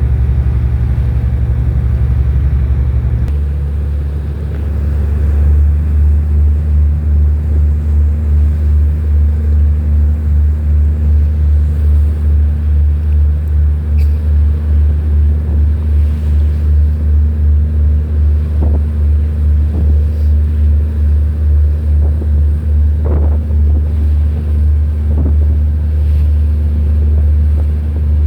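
Deep, steady rumble of a vessel's engine, throbbing about twice a second, with a few faint knocks in the second half.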